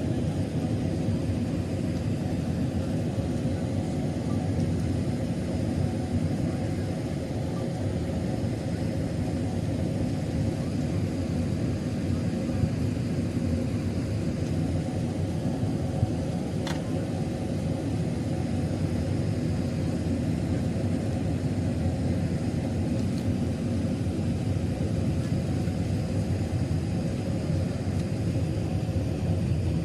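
Steady low rumble of an Airbus A380 heard from inside the passenger cabin: engine and airflow noise during the landing approach. A single faint click about halfway through.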